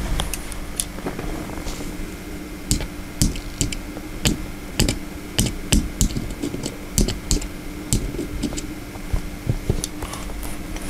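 A small TYJ40-12 geared synchronous motor under mains voltage, with a steady hum. From a few seconds in, sharp irregular clicks and taps come as pliers nudge its exposed plastic gears. The motor starts but won't keep turning, as if something in the gear train has jammed.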